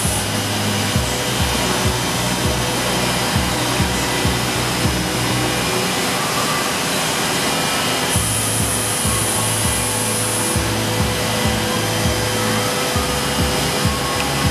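Woodworking CNC machining center running, a steady whooshing noise from its spindle and air, with a higher hiss that comes in about eight seconds in and stops a couple of seconds later. Background music with a steady beat plays over it.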